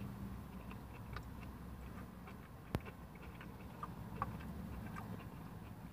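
A man chewing a bite of breaded chicken tender: faint mouth noises and small scattered clicks over a low background hum, with one sharp click a little before the middle.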